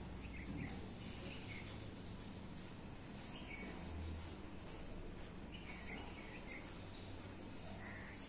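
Quiet background noise: a steady low hum and hiss, with scattered faint short high chirps.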